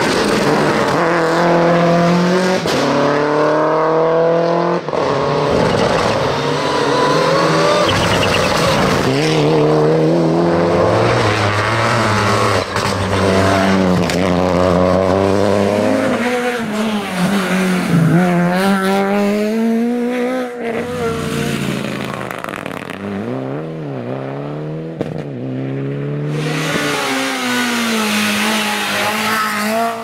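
Rally car engines at full effort on a tarmac stage, revving up and dropping back again and again through gear changes and hairpins. First comes a Subaru Impreza's flat-four, then a Peugeot 208 rally car, then another car accelerating away near the end.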